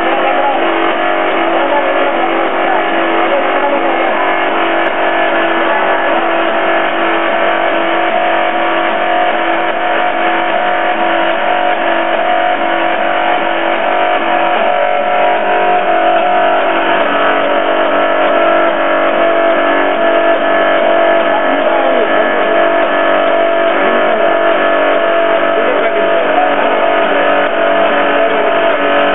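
Hydraulic power pack running at constant speed to pressurise the hoses of concrete-splitting hydraulic bursters: a steady mechanical drone with fixed whining tones that does not change.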